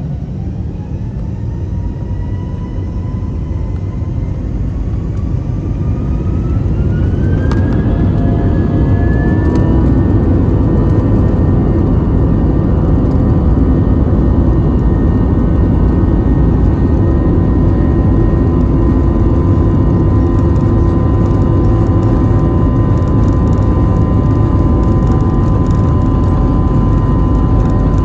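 IAE V2500 turbofan engines of an Airbus A321 spooling up. The whine rises in pitch and the noise grows louder over about ten seconds, then both hold steady at high thrust over a heavy low rumble.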